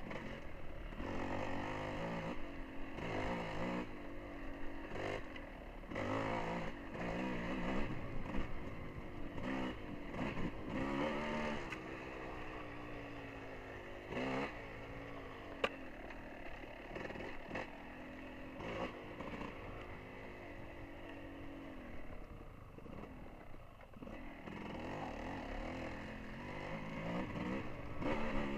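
Dirt bike engine heard from on the bike, revving up and easing off again and again, its pitch rising and falling as the rider works the throttle. A single sharp click sounds about halfway through.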